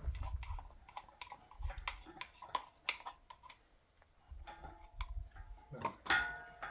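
Irregular clicks, taps and knocks from hands handling hard objects, with a few dull thuds and a short held squeak-like tone near the end.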